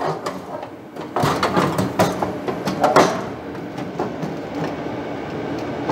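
Thin sheet-metal skin panel of a pellet grill being slid and pushed up into place against the grill body, scraping and rattling, with a few sharp metal knocks.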